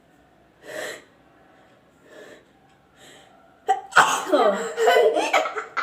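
A woman sneezing hard, provoked by tickling her nose with a grass-broom stalk: three short breaths build up, then a loud sudden sneeze about four seconds in, with her voice trailing on after it.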